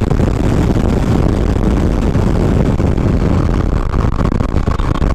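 Wind buffeting the microphone over a motorcycle running at highway speed, a BMW G310GS with a single-cylinder engine. The noise is loud and steady and starts abruptly.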